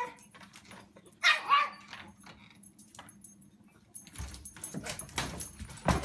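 A dog gives two short, high-pitched barks about a second in. Near the end come scuffling and a sharp knock as the dogs push through a metal screen door.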